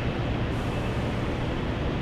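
Steady, even noise of jet airliner engines, heaviest in the low rumble.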